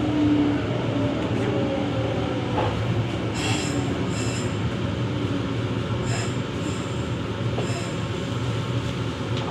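Nagoya Tsurumai Line subway train running into a station, heard from on board: a steady rumble with a motor whine falling in pitch over the first few seconds as it slows, and short high squeals from the wheels or brakes four times.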